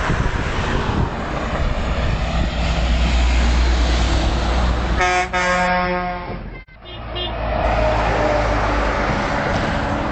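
A heavy truck going by with a deep engine rumble, then a truck horn sounding for about a second, about five seconds in. Traffic noise carries on afterwards.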